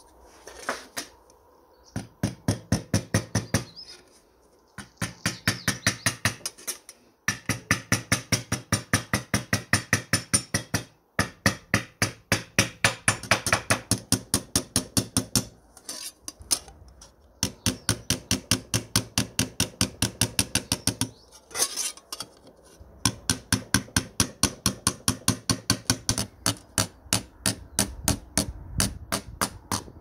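Steel Proteco hammer tapping a thin tin plate held against a steel anvil, flattening the plate's bent edges. The light, quick blows come about five a second, in runs of a few seconds with short pauses between.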